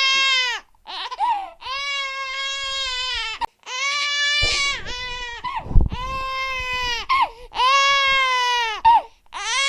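Baby crying loudly in repeated wails, each about a second or more long, with short breaks for breath between them. A brief low thump about six seconds in.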